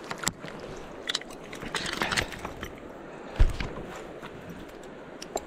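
Close handling noise of netting a fish: scattered clicks, crackles and scrapes, with one low thump about three and a half seconds in, over the steady wash of river water.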